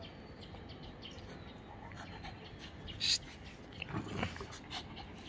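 Shih Tzu puppy playing with a rubber basketball on grass: light scratches and taps of teeth and paws on the ball, a sharp scuff about three seconds in, and a short low sound about four seconds in.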